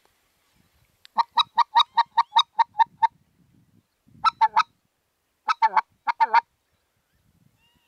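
Goose honking: a fast, even run of about ten short honks, then two short clusters of honks, the last ones trailing off into lower, falling tails.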